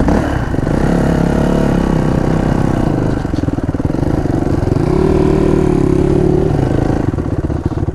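Dirt bike engine running at low speed under light throttle. The pitch climbs a little after three seconds, holds higher for a few seconds, then drops back.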